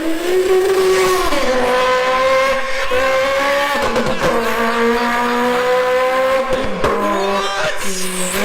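High-revving car engine, its pitch holding and then stepping to a new level several times, as in gear changes.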